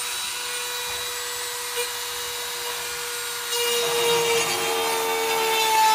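Dremel rotary tool with a router attachment running steadily at high speed with a constant whine, slowly cutting a pocket into a foam insert. About three and a half seconds in, the cutting gets louder and rougher, and the whine drops a little in pitch as the bit works under load.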